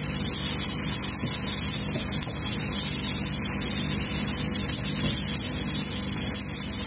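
Cauliflower and vegetables sizzling steadily in oil in a frying pan: a constant hiss with a faint low hum underneath.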